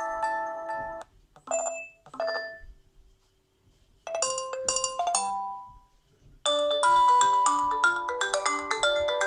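Nokia 7 Plus stock ringtones previewed one after another, each cut short when the next is picked. A melody stops about a second in and two short chimes follow. After a pause a brief tune plays around four seconds in, and a busier melodic ringtone starts about six and a half seconds in.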